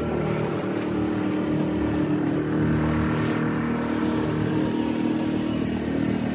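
The engine of a small open tour boat running steadily while under way, with water rushing past the hull.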